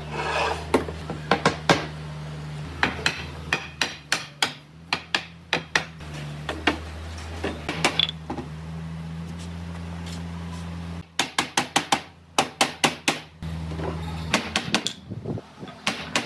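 A hammer striking wood in many sharp, irregular blows, often in quick runs of two to four. A steady low hum runs underneath, stops about eleven seconds in and comes back about two seconds later.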